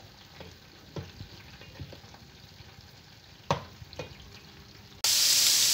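A wooden spoon stirring chunks of beef in a pot, with a few light knocks of the spoon against the pot as the meat cooks off its juices. Near the end it switches abruptly to loud, steady sizzling of food frying.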